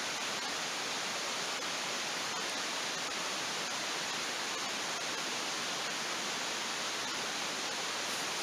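Steady, even rushing hiss with a few faint, scattered crackles from a wood campfire.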